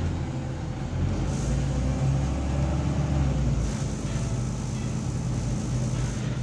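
VDL DB300 double-decker bus engine running, heard from inside the lower saloon, with a steady low engine note over road and cabin noise. The lowest part of the engine note changes about three and a half seconds in.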